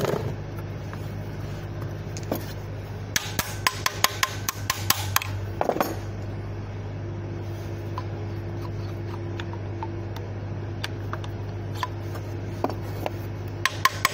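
Sharp metallic clicks and taps from the steel timing gears of an Isuzu diesel engine being fitted and meshed by hand: a quick run of about a dozen clicks about three seconds in, a short scrape soon after, and a few more clicks near the end, over a steady low hum.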